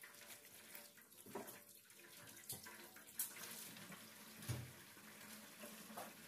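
Faint tap water running into a kitchen sink as a scaled fish is rinsed, with a few light knocks of the fish being handled, the loudest a dull thump about four and a half seconds in.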